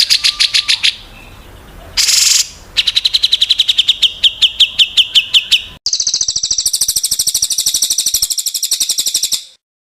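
Small songbirds' rapid trilling calls, spliced one after another as a birdsong training recording: a trill that stops about a second in, a short harsh burst, a fast trill that drops slightly in pitch, then an abrupt switch to a very fast, high trill that cuts off just before the end.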